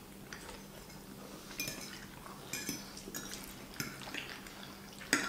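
Close-miked eating of seafood linguine: a metal fork clinking and scraping on a ceramic plate as pasta is twirled, with soft chewing and mouth sounds between. The clicks come every second or so, with a sharper one near the end.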